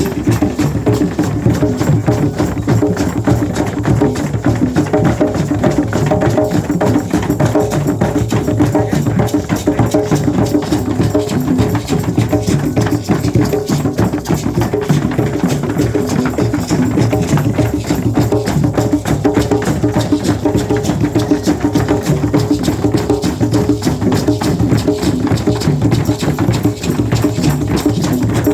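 A drum beaten by hand in a rapid, steady beat of shamanic drumming, each stroke a low, full thud, with no break in the rhythm.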